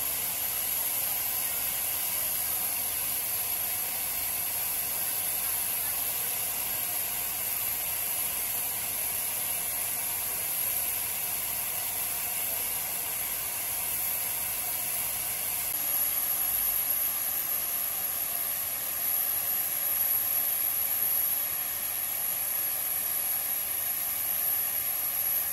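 Steady hiss of steam from a Pacific-type steam locomotive standing with steam up, swelling slightly a couple of times.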